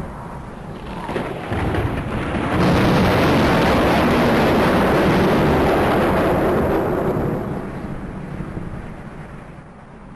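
Thunder rumbling: a long, deep roll that swells over the first couple of seconds, holds loud, then dies away over the last few seconds.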